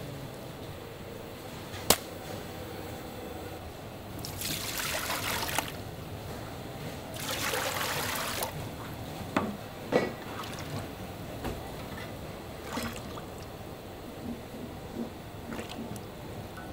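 Liquid flowing in two short spells of a second or so each, with a sharp click about two seconds in and scattered knocks and clatter.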